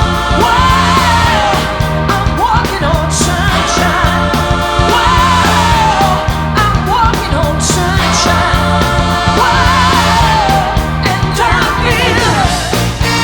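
Upbeat pop-rock song with a lead singing voice over a steady beat.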